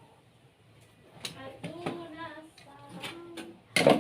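Faint background voices, then one loud, sharp knock of parts being handled near the end, during assembly of a cotton candy machine.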